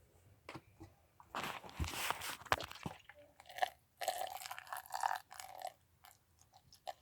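Squishing and crackling of slime ingredients, including toothpaste, being mixed, in irregular bursts with a few clicks.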